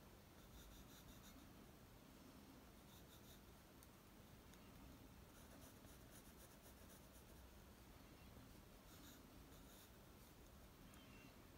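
Faint scratching of a graphite pencil on drawing paper, coming in several short bursts of quick strokes with brief pauses between them.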